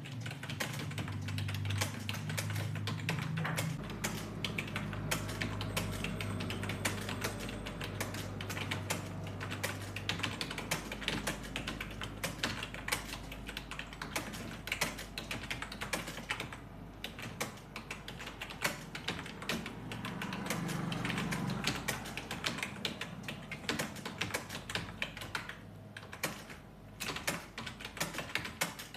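Fast, continuous typing on a computer keyboard during a speed test: a dense run of keystrokes at about 57 words per minute, with a couple of brief pauses.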